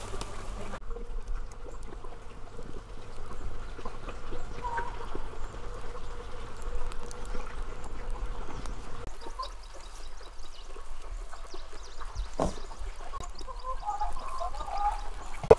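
Farm fowl calling now and then, more often near the end, over a steady trickle of running water.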